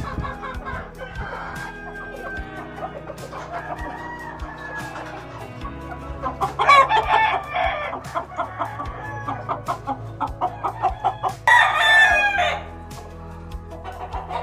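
Roosters crowing, with the loudest crows about 7 seconds and 12 seconds in, and a rapid run of clucking between them.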